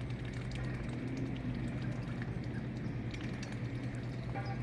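Quiet outdoor ambience: a steady low hum under a soft noise haze, with faint high chirps and ticks from small birds and a brief call near the end.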